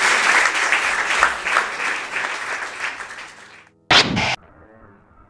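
Audience applauding, the clapping dying away over about three and a half seconds. Then comes a short, loud burst of noise lasting about half a second that cuts off abruptly, leaving only a faint hiss.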